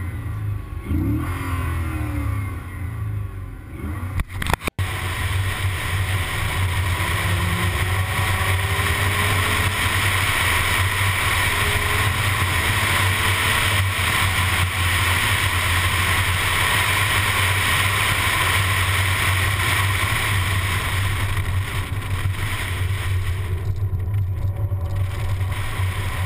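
2012 Chevrolet Corvette convertible driving with the top down: steady wind noise on the microphone over a low engine and road rumble, with the engine's pitch rising and falling in the first few seconds.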